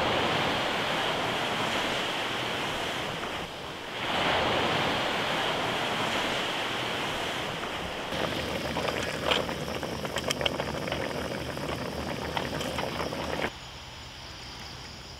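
Steady rushing noise of wind and waves, broken off briefly twice. From about eight seconds in, scattered clicks and knocks sit over it, and near the end it drops suddenly to a much quieter background.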